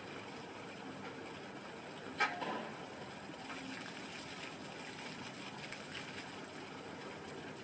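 Water from a small solar-powered fountain pump splashing steadily back into a shallow plastic tub. One sharp click stands out about two seconds in.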